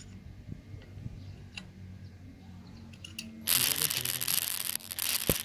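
Faint background music, then, about three and a half seconds in, a loud rough rustling for about two seconds as cloth rubs against the phone's microphone while it is handled.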